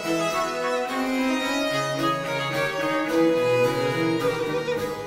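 Classical background music for bowed strings: a violin melody over a lower cello line, moving through changing notes.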